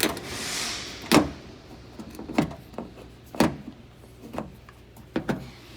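A string of sharp knocks and clicks, roughly one a second with a quick double near the end, from parts being worked into place on a car's rear door. A short scraping rustle comes in the first second.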